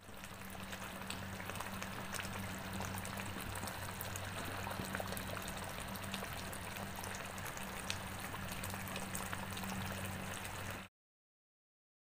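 Thick red chili-tomato gravy with chicken simmering in a wok, bubbles popping and spitting in quick small clicks over a steady low hum. It cuts off abruptly near the end.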